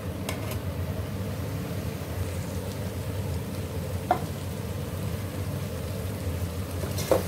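Boiled white chickpeas frying in masala in an aluminium pot: a steady low sizzle, with a few clinks of the steel spoon against the pot as they are stirred.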